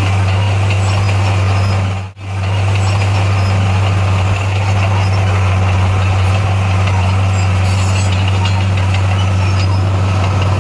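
Bulldozer's diesel engine running steadily with a deep, even hum. The sound drops out briefly about two seconds in.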